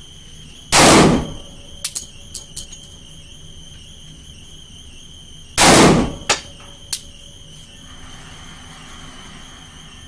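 Two pistol shots from a Glock 30S in .45 ACP, about five seconds apart, each followed by a few small, sharp clicks.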